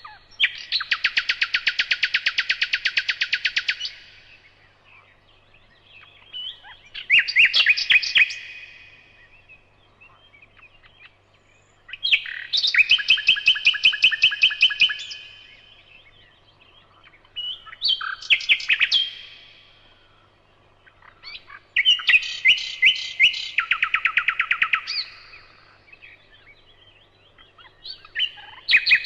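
A songbird singing: six fast trilled phrases of rapid repeated notes, each two to four seconds long, with pauses of a few seconds between them.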